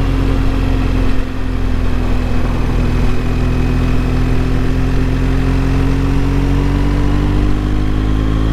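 BMW GS motorcycle engine running at a steady cruise while being ridden. Its note sags gently and then climbs a little near the end.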